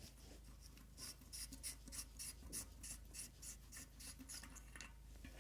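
Faint scratchy rubbing from handling the disassembled bicycle front hub and its parts, a run of short strokes about three a second that starts about a second in and stops near the end.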